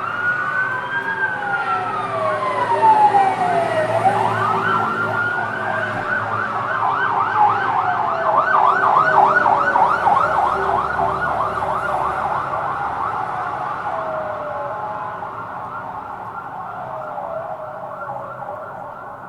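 Fire truck siren wailing in slow rising and falling sweeps. About six seconds in it switches to a fast yelp, then returns to the slow wail about six seconds later and fades away.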